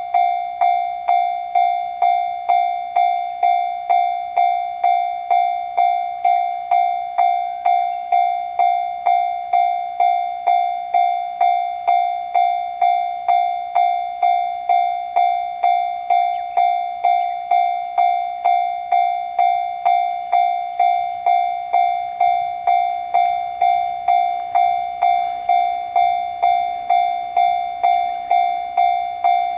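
Japanese railroad crossing alarm (kan-kan) ringing at a steady beat of about two strikes a second, each strike a bright bell-like ding. A faint rumble grows underneath near the end.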